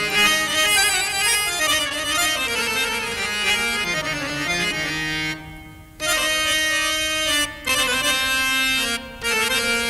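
Harmonium playing the introductory melody of a Hindi film song in long sustained notes. It breaks off briefly about five and a half seconds in, then returns in shorter phrases.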